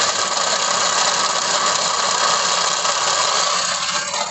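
Ford EcoSport 1.6 Sigma engine running with its starter motor still engaged after starting, a loud steady metallic grinding whir over the engine. It is the sign of a starter drive that is not retracting, stuck by thick, crusted grease; the noise drops away near the end.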